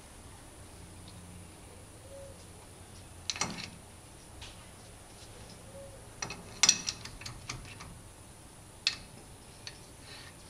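Adjustable wrench clicking and clinking against the spindle nut of a Ford Ranger front hub as the wheel-bearing nut is tightened. A couple of sharp metal clicks come about three seconds in, a quick cluster around six to seven and a half seconds, and one more near nine seconds.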